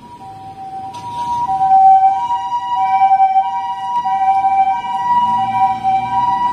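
Japanese ambulance's two-tone hi-lo siren ("pii-poo"), alternating between two steady pitches, sounding as the ambulance sets off on an emergency run. It grows louder over the first two seconds, then holds steady.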